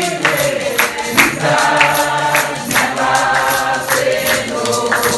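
A congregation singing a hymn together in several voices, with a sharp percussive beat about twice a second.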